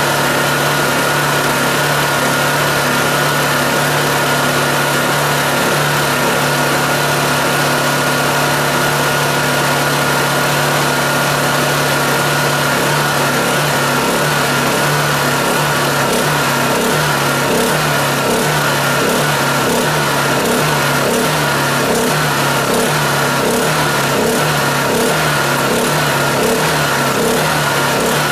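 Honda EU2000i inverter generator running on propane, its engine note steady with a thin whine over it. About halfway through the engine note starts to pulse up and down in a regular rhythm, hunting as the propane regulator is adjusted; the owner puts this down to a regulator made for big generators, whose adjustment screw is too coarse for this small engine.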